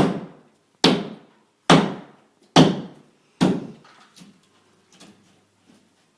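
Hammer striking a sheetrock wall during demolition: five hard, evenly spaced blows a little under a second apart, each a sharp thunk that dies quickly, followed by a few much fainter knocks.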